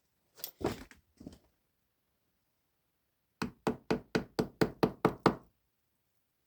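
Three knocks, then a quick, even run of about nine knocks at roughly four a second.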